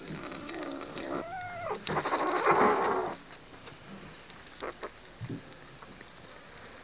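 A kitten meows once, briefly, about a second in. A louder, harsh, rasping cat sound follows and lasts about a second. After that there are only a few faint clicks.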